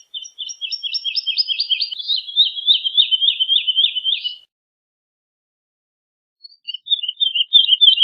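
Woodlark singing: a phrase of rapidly repeated, slurred notes lasting about four seconds and dropping slightly in pitch, then a pause of about two seconds before a second phrase of repeated notes begins near the end.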